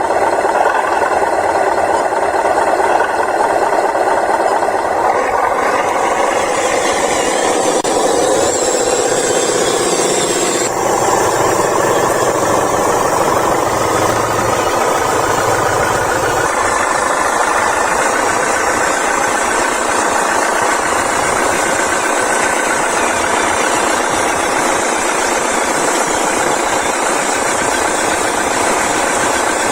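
Small electric motors and gearboxes of radio-controlled toy excavators and a dump truck whirring steadily as they work, the pitch and texture shifting about six and eleven seconds in.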